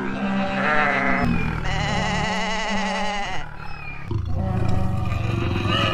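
Animal calls: two long, quavering bleat-like cries, then a lower, rough roar starting about four seconds in.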